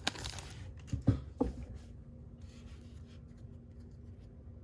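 Baseball trading cards being handled and slid through the hands, a soft rustle fading in the first second, then two light taps a third of a second apart.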